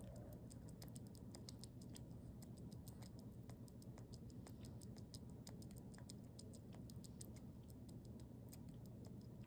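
Faint, rapid, irregular clicking, several small clicks a second: a baby sugar glider eating.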